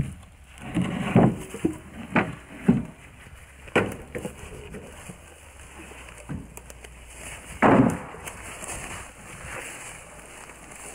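Cut logs knocking and thudding onto a plywood trailer bed and against each other as they are loaded by hand: a series of separate wooden hits, the heaviest about eight seconds in.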